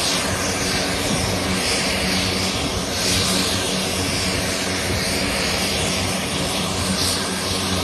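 Twin-engine propeller aircraft taxiing with its engines running, a steady low propeller drone under a wide hiss.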